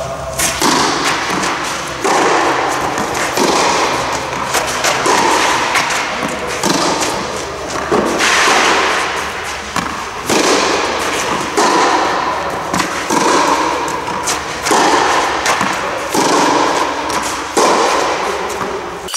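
Tennis rally on a clay court: a racket strikes the ball about every second and a half, each hit ringing out in the large hall, over a steady low hum.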